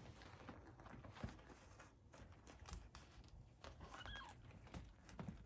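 Near silence: faint scattered rustles and soft taps of cats shifting on carpet, with a brief faint high-pitched sound about four seconds in.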